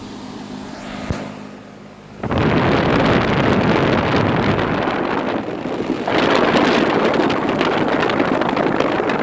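Air blowing hard across the microphone, a loud rushing buffet that starts abruptly about two seconds in, over the steady hum of a running 2005 Tempstar central air conditioner condenser.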